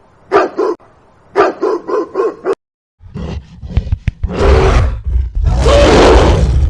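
A dog barking in two quick runs of short barks. After an abrupt cut, a large animal gives a deep, rumbling roar in two long calls.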